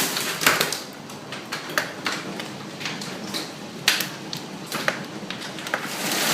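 Hailstones striking hard surfaces in scattered sharp knocks, about a dozen, over a softer hiss. The dense rush of the storm drops away at the start and returns near the end.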